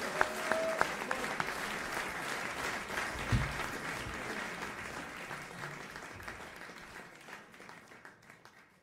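Live audience applauding, the clapping growing steadily quieter and fading out near the end. A single low thump about three seconds in.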